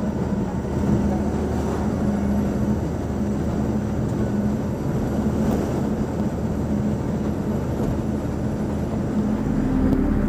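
Steady engine and road noise of a moving vehicle cruising on a highway: an even rushing drone with a steady low hum.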